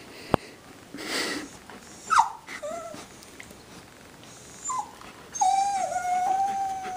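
Dog whining. Two short falling whines come about two seconds in, a brief one near five seconds, and then one long high whine held to the end. A sharp click comes about a third of a second in, and a short noisy huff about a second in.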